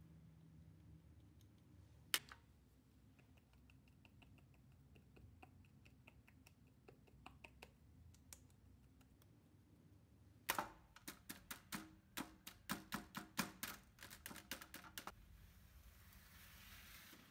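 A fork pricking raw tart dough in small fluted metal tartlet tins, the tines clicking against the tins: one sharp click about two seconds in, faint quick ticks after it, then a run of loud clicks, about four a second, for some five seconds. A soft hiss follows near the end.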